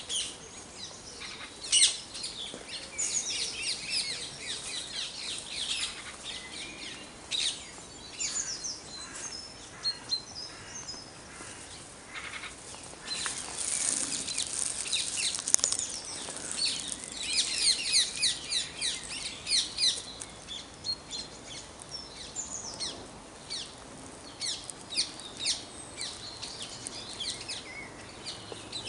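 Dawn chorus: several songbirds singing at once, overlapping rapid trills and short high chirps, at its thickest about halfway through.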